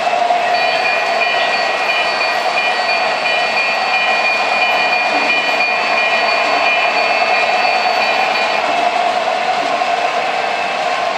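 O-gauge model freight trains rolling on three-rail tubular track: a steady clatter and rumble of wheels and motors. High ringing tones from the passing MTH Alaska Railroad GP30 diesel's sound system start about half a second in and stop a few seconds before the end.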